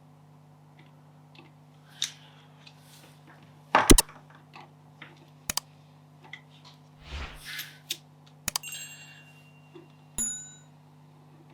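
Scattered clicks and knocks of small tools and plastic headphone parts being handled on a workbench, over a steady low hum. The loudest is a sharp double knock about four seconds in, and a click a little past the middle leaves a brief metallic ring.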